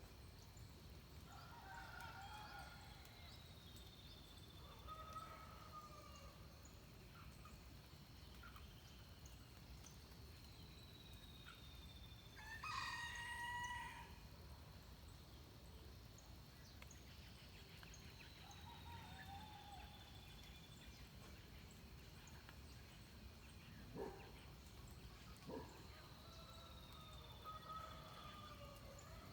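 Faint dawn birdsong with a distant rooster crowing once, about halfway through, the loudest sound. Another bird repeats a thin, falling whistle every eight seconds or so, other birds chirp softly, and two short sharp calls come near the end.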